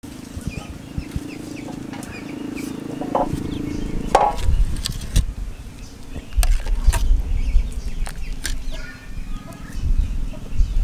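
A metal ladle knocking and clinking against a steel cooking pot of porridge, several sharp knocks, with chickens clucking in the background and a low rumble underneath.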